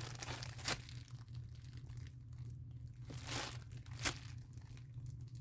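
Plastic packaging crinkling with a few scattered crackles as a squishy toy is handled, over a steady low hum.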